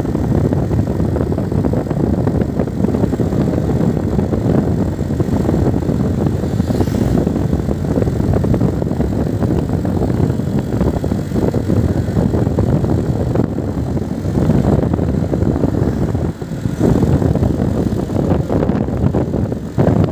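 A road vehicle travelling at speed: a loud, dense low rumble of engine and wind noise on the microphone, dipping briefly about sixteen seconds in.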